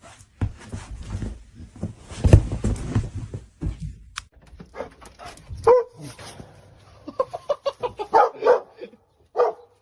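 A dog barking, with a quick run of short barks near the end. Rustling and thumping noises fill the first half.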